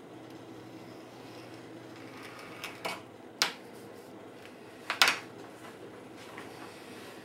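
A few short clacks and crinkles from a straightedge and plastic Monokote covering film being handled on a workbench while the film is measured and cut. There are three quick ones a little before halfway and the loudest double clack about two-thirds through, over a steady low hum.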